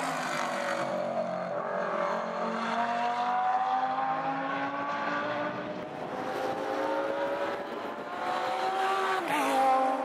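Audi R8 LMS Ultra's V10 race engine pulling under load, its pitch climbing gradually, then dropping sharply near the end.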